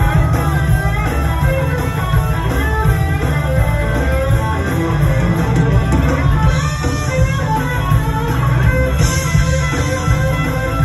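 Live blues band through a festival PA: a lead electric guitar plays short single-note lines with bends over heavy bass and drums.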